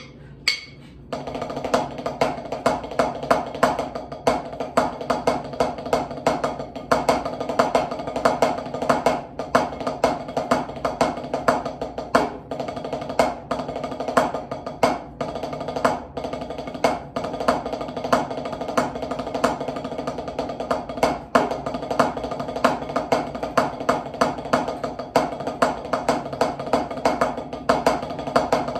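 Wooden drumsticks playing a rudimental snare drum solo on a rubber practice pad: dense strokes, rolls and regularly recurring louder accents, starting about a second in after a single stick click, with a steady pitched ring underneath.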